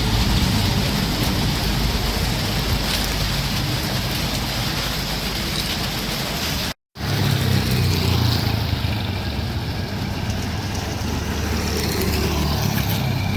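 Steady outdoor road-traffic noise, vehicles running past with a low rumble, cut off abruptly about seven seconds in and resuming at once as another stretch of the same kind of noise.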